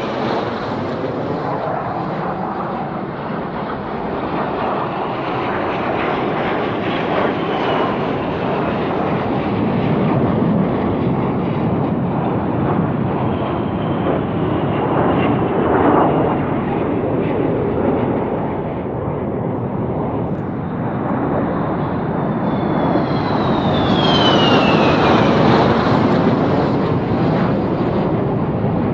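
Fighter jet engine roar, loud and continuous, swelling slightly around the middle and again near the end. A high whine falls in pitch about 23 seconds in.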